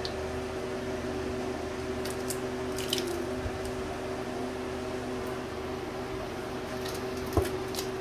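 Uncapping fork scraping wax cappings off a honey frame, giving soft sticky scratches, loudest around a third of the way in and near the end, over a steady mechanical hum. One knock sounds near the end.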